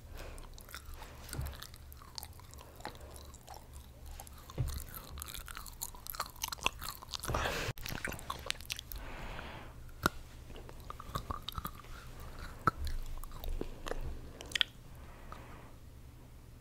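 Chocolate being bitten and chewed close to a microphone, with many short sharp clicks and snaps from the mouth and teeth.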